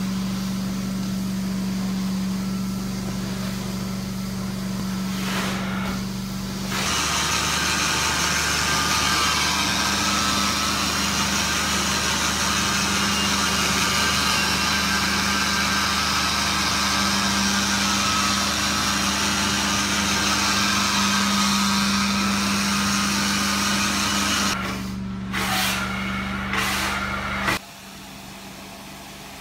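Carpet-cleaning extraction machine running with a steady hum, joined for most of the middle by the loud hiss of vacuum suction through its hose and wand. Near the end the hiss breaks into a few short gusts, and the sound then drops to a quieter hum.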